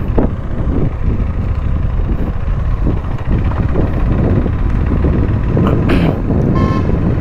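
KTM Duke 390's single-cylinder engine running as the motorcycle pulls away at low speed, heavy with wind noise on the microphone. A brief beeping tone sounds near the end.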